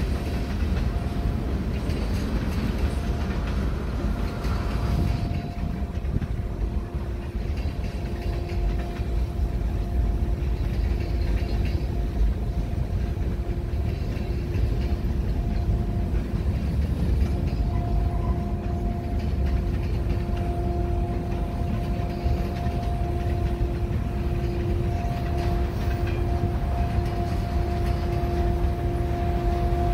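Steady low rumble of an approaching freight train led by a CN diesel locomotive, with a steady two-note hum an octave apart through most of it.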